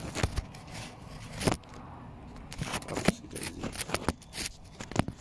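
Handling noise from a phone being moved and propped up: irregular clicks, knocks and short scrapes against the foil-covered stove.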